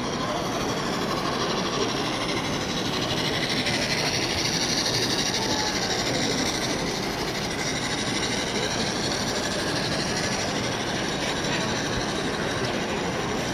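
Model train running along a layout track, a steady rolling noise of wheels on rail.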